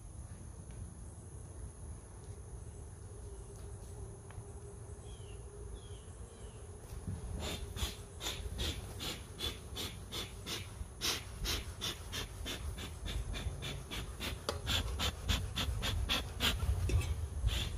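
Honeybees humming around an open hive. From about seven seconds in, a run of quick, crackling clicks comes several times a second.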